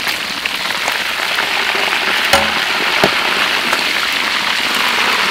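Hot oil sizzling steadily in a wok around a whole large fish as it deep-fries. Two sharp clicks of a metal utensil against the wok come about two and three seconds in.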